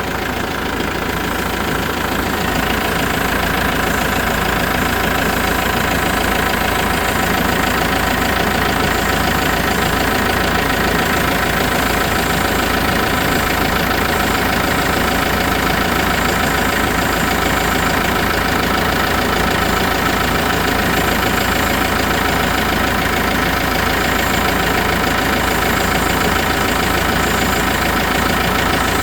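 Tractor diesel engine idling steadily, with the air conditioning running while its refrigerant is topped up; it grows slightly louder over the first couple of seconds, then holds even.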